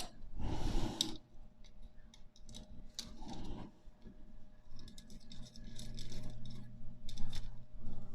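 Steel bicycle spokes clicking and rattling against each other and the hub as a spoke is threaded through and laced into the wheel, with a short scrape about a second in and a run of small metallic ticks near the end.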